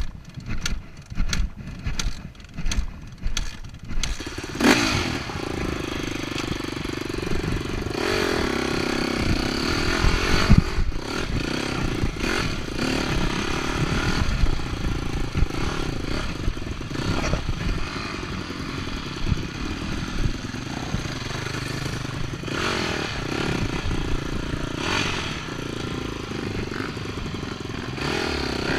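Dirt bike engine chugging at low revs with a slow pulsing beat for the first few seconds, then running steadily at riding speed with small rises and dips in revs.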